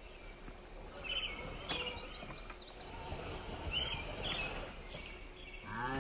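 Wild birds calling in woodland: short bursts of high chirps and quick falling whistles repeating every second or two, over a steady outdoor background hiss.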